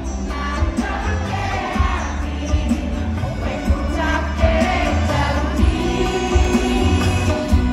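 Live band and singer performing a pop song through a loud concert PA, heard from within the crowd, with heavy bass and the audience singing along.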